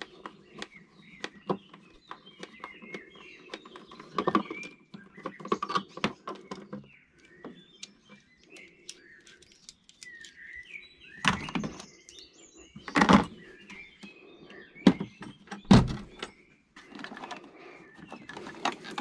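Plastic clicks, rattles and knocks from hands unplugging wiring connectors and handling air intake parts in a car engine bay, with three heavier thumps in the second half. Birds chirp in the background.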